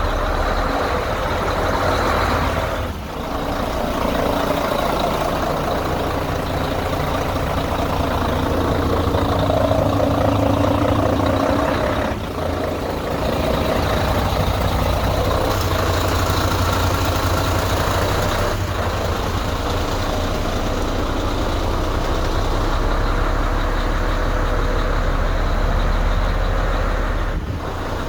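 Truck engine running steadily, with a low hum, dipping briefly three times.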